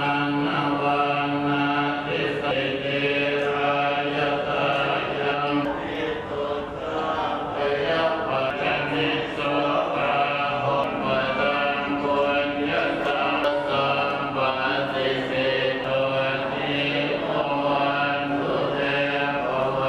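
A group of voices chanting in unison, with long held notes that shift pitch every second or two over a steady low drone.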